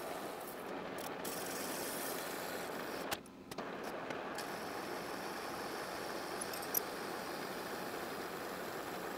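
Metal lathe spinning a motorcycle brake disc while the cutting tool skims its face: a steady machining noise. It dips briefly about three seconds in.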